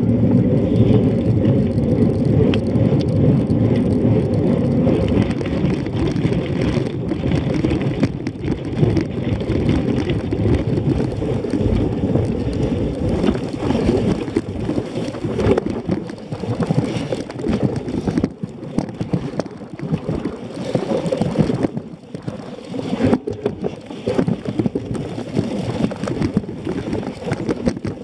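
Cyclocross bike riding over bumpy grass, picked up through a camera mounted on the handlebars: a continuous, irregular rattling rumble of tyres and frame vibration with small knocks.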